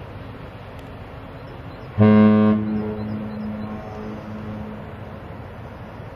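Cruise ship's horn giving one short, deep blast about two seconds in, its sound hanging on and fading over the next couple of seconds.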